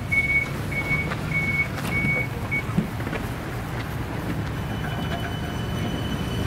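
Door-closing warning beeps of a 71-911EM 'Lvyonok' low-floor tram, one even high beep about every 0.6 s, stopping about two and a half seconds in, followed by a short knock as the doors shut. A low hum runs underneath, and a steady high whine from the traction drive starts about four and a half seconds in as the tram begins to move off.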